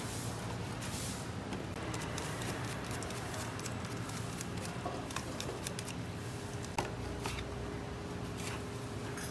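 Fruit being cut with a knife: scattered light clicks and soft squishing over a steady background hum.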